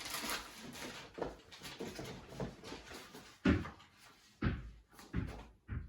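A shipping package being handled: soft rustling of packaging with four dull knocks in the second half, the first of them the loudest.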